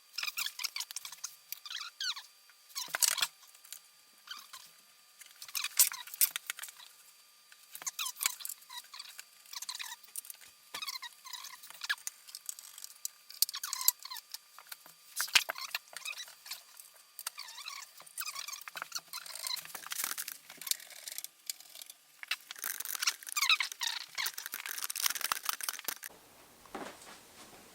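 Plastic and paper packaging rustling and crinkling in irregular spells as keyboard parts are unwrapped and handled.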